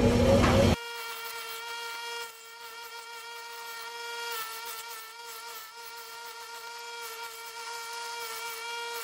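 Bench grinder running with a steady whine while cut steel tube ends are held to the wheel to grind off their burrs and sharp edges. The louder grinding noise drops away abruptly about a second in, leaving the motor's whine, which sags slightly in pitch now and then under the work.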